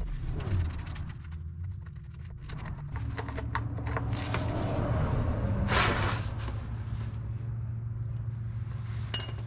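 A few metallic clicks as the drain plug is worked loose, then old engine oil pouring from the Willys L134 flathead's sump into a plastic drain pan, starting about three seconds in and running on as a steady splashing hiss over a low hum.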